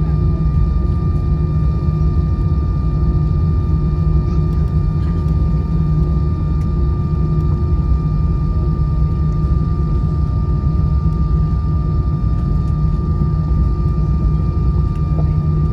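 Steady cabin noise inside an Airbus A320 on the ground after landing: a loud, even low rumble with a constant high whine and a few fainter steady tones over it.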